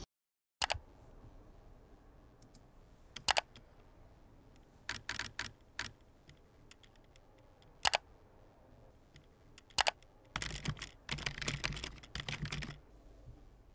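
Typing on a computer keyboard: single sharp key clicks every couple of seconds, and two quick runs of keystrokes, a short one midway and a longer one near the end.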